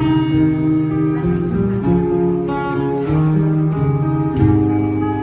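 Acoustic guitar playing the introduction of a slow ballad, with chords changing about once a second.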